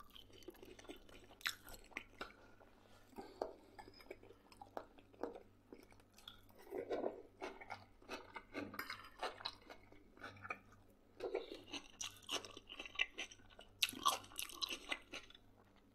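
A person chewing food close to the microphone, with irregular wet mouth smacks and clicks.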